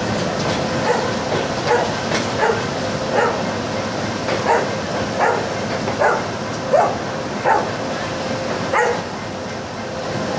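A dog barking about a dozen times, roughly one bark a second, over the steady running noise of a train.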